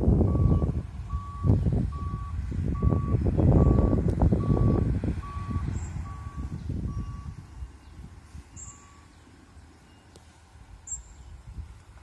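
A truck's reversing alarm beeping evenly, a little more than once a second, fading out about nine seconds in, over a heavy low rumble that dies down in the second half.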